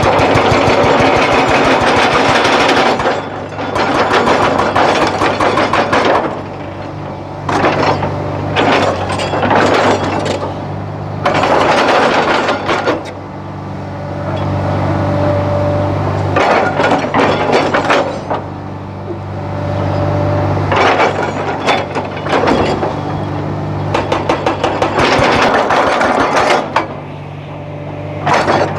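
An excavator's diesel engine runs steadily while bursts of rapid cracking and rattling, a few seconds each, come and go, as of stone being worked. Between the bursts the engine hum stands out.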